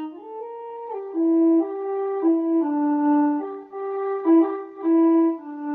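Akai EWI 5000 electronic wind controller on synth preset 81 'Electro Rezzo', playing a short melody of about a dozen held notes that step up and down in pitch. The notes are slurred together without tonguing.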